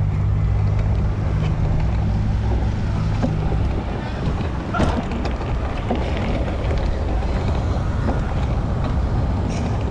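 Wind buffeting the microphone of a camera riding on a moving bicycle: a steady low rumble.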